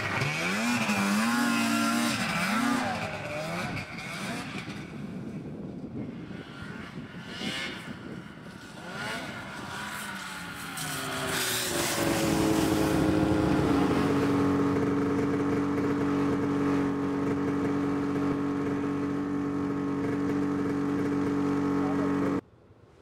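Snowmobile engine revving up and down, then holding a steady high note for about ten seconds as the sled passes close by, cut off suddenly near the end.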